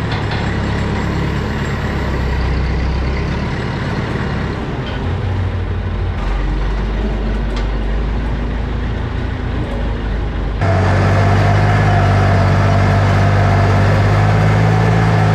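Tractor engine running steadily. About ten seconds in, the sound cuts to a louder, steadier tractor engine running under way.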